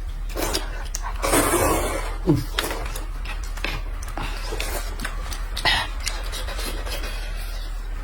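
People eating noodles: noisy slurps and breathing, with scattered sharp clicks of utensils against bowls.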